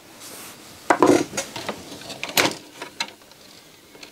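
Black plastic CD loader mechanism of a CD player being handled and lifted by hand, giving a run of irregular clicks, knocks and rattles, the loudest about a second in and again about two and a half seconds in.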